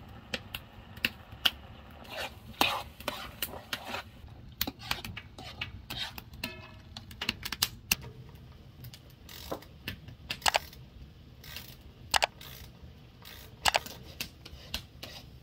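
Metal spoon stirring sauce in a frying pan, sharp irregular clicks and scrapes as the spoon knocks against the pan.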